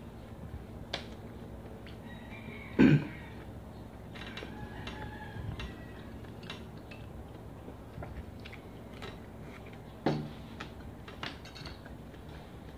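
A person eating by hand and chewing, with small clicks and taps of food and fingers on a plate. A short, loud cough-like throat sound comes about three seconds in, and a weaker one about ten seconds in.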